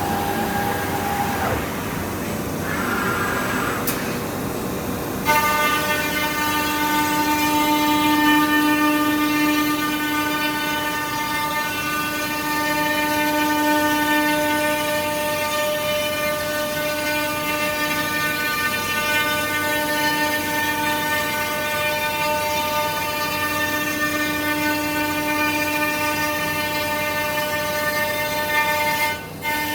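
Weeke BHC 350 CNC woodworking machining centre running. About five seconds in it settles into a loud, steady pitched whine that holds to the end, after a start of mixed machine noise with shifting tones.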